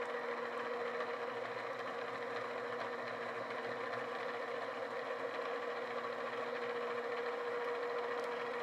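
DoAll gear-drive-head drill press running steadily, drilling a hole through a cork-and-rubber machine pad, with a steady even hum.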